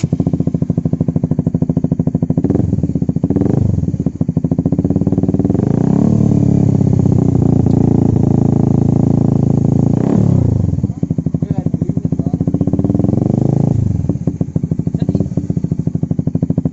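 Honda CBR150R's single-cylinder four-stroke engine revving through a replica ProLiner slip-on exhaust, run without hitting the rev limiter. The engine is blipped up about a few seconds in, held at high revs for about four seconds in the middle, dropped back, then revved up and down again near the end.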